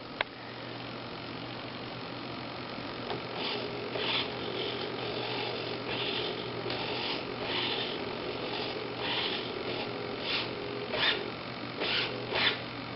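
A JR Sport standard-size RC servo driving the elevator up and down, giving a short whirring buzz with each move. The buzzes come about a dozen times at irregular intervals, starting about three seconds in, over a steady low hum.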